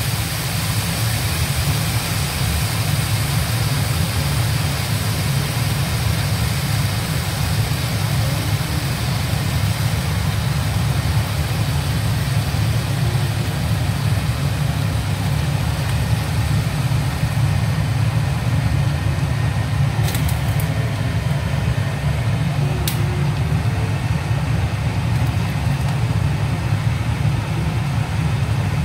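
A steady low rumble in the kitchen while a large pot of rice and meat broth heats toward the boil on the hob. A few faint ticks come about 20 and 23 seconds in.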